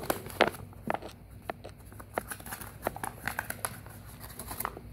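Paper seed packet being handled and opened: irregular crinkling with many small, sharp clicks of paper.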